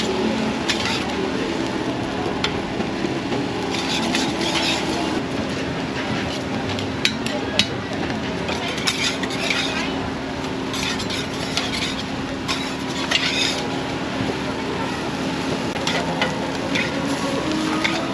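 Steel spatulas scraping and clicking on a flat-top griddle, in clusters of quick strokes with a few sharp taps, over a steady sizzle of bread frying in butter and egg.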